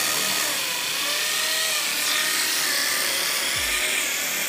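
Handheld corded electric power tool running steadily at full speed against a masonry wall beside a steel door frame, making a loud, even whirring noise.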